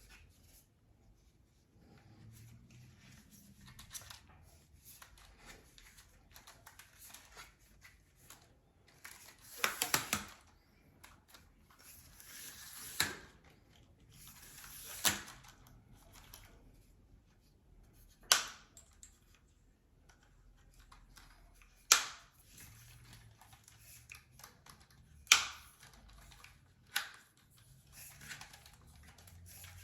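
Heipi 3-in-1 travel tripod being handled and adjusted: a string of separate sharp clicks and clacks a few seconds apart from its parts and locks, with light rustling and scraping between them.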